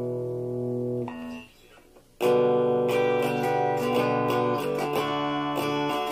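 Stratocaster-style electric guitar played with a clean tone: a held chord rings, then is cut off about a second in; after a short pause, picked chords and single notes follow in quick succession.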